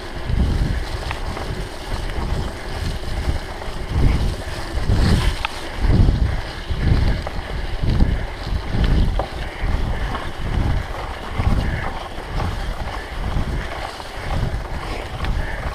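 Wind buffeting the microphone of a camera on a moving mountain bike, in irregular low gusts, with a few light clicks and rattles from the bike on the trail.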